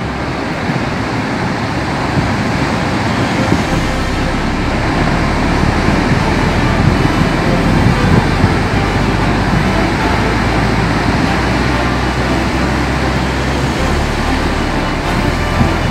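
Steady rumbling roar of sea surf and wind against the rocks, with no distinct breaks or impacts.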